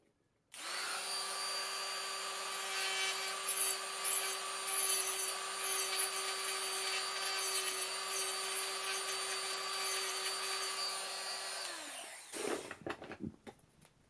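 A small handheld power tool starts and runs at a steady speed for about eleven seconds, with an uneven rasping as it cuts into material, then spins down. A few light clicks follow near the end.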